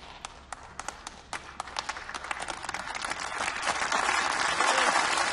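A large audience applauding. It starts as a few scattered claps and swells over about three seconds into full, dense applause.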